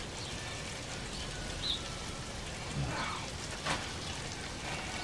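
Fish burgers and green asparagus sizzling steadily on the hot plate of a gas grill, with a few faint clicks.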